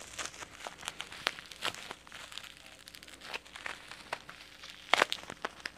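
Plastic bubble wrap crinkling and crackling in the hands as it is squeezed and pulled at to unwrap a small jar, with a sharper, louder crackle about five seconds in.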